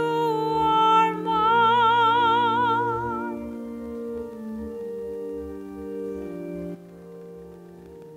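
A solo singer holds a high note with wide vibrato over sustained organ chords; the voice ends about three seconds in and the organ chords carry on, dropping quieter near the end.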